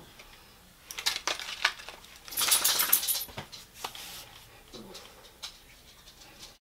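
Light clicks and taps from handling a small cardboard product box, then a brief jingling rattle about two and a half seconds in, followed by a few scattered ticks.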